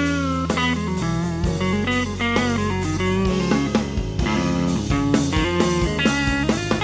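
Instrumental section of a rock song: an electric guitar plays quick runs of notes over bass guitar and drums.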